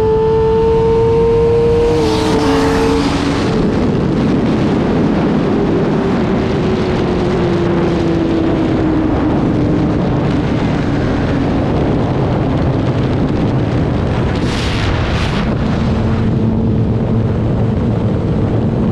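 Sport motorcycle engine at speed with heavy wind rush: the engine note climbs, drops sharply at a gear change about two seconds in, then sinks slowly as the bike eases off. Two short hissing bursts come near the end.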